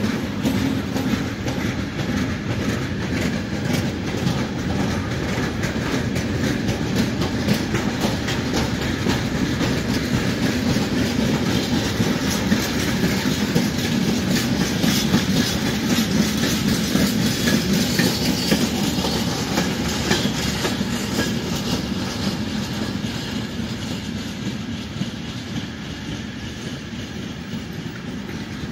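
Container freight train of flat wagons rolling past, its wheels making a steady clatter over the rails. It grows a little louder midway and eases off near the end.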